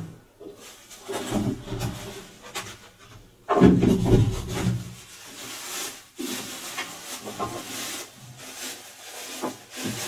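Cardboard box and clear plastic wrapping rustling and scraping as a wet-and-dry vacuum cleaner is lifted out of its box and handled, in irregular bursts with the loudest scrape about three and a half seconds in.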